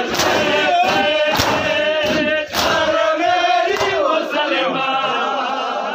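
A crowd of men chanting a Muharram mourning chant together while beating their bare chests in matam. The hand slaps land in unison about every second and a quarter and stop about four seconds in, while the chanting carries on.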